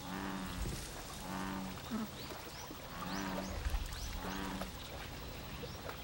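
American bullfrogs calling in the breeding season: four deep, cow-like notes, each about half a second long, spaced a second or more apart.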